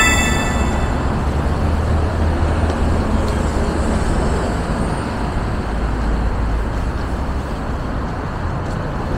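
Steady city street traffic noise, with a low rumble of passing vehicles.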